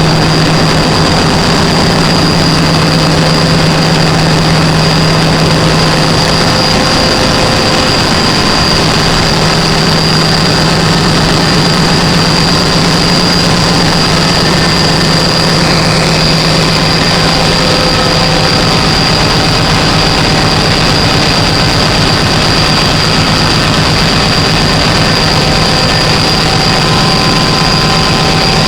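Gas engine generator running loud and steady at constant speed, with an even low hum and a thin high whine held throughout.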